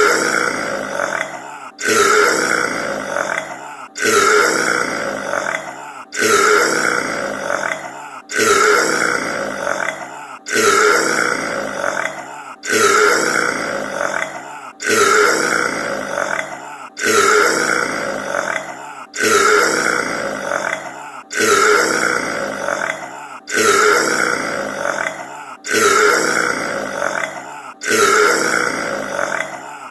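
A man's loud, drawn-out burp, the same clip looped over and over. It restarts abruptly about every two seconds, each time fading before the next begins, roughly fourteen times.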